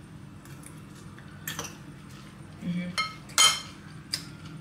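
A fork clinking and scraping against a plate as salad is picked up and eaten: a few sharp, ringing clinks, the loudest about three and a half seconds in.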